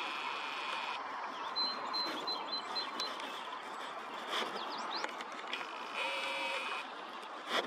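Small songbirds chirping and singing: a few short trills and a quick run of high, evenly spaced notes, over a steady outdoor hiss. A single sharp click comes near the end.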